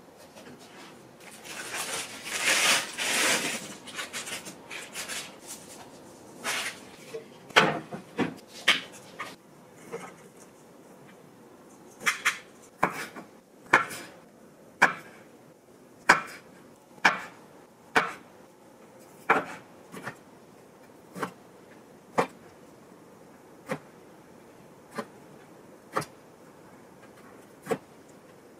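Rustling and handling noise for a few seconds, then a wide-bladed kitchen knife chopping peeled garlic cloves on a wooden cutting board: single sharp knocks about once a second, a little further apart toward the end.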